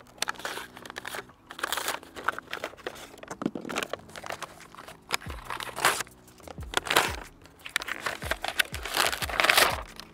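Paper wrapping crinkling and tearing as it is pulled off a packed bike battery, in irregular rustling bursts, loudest near the end.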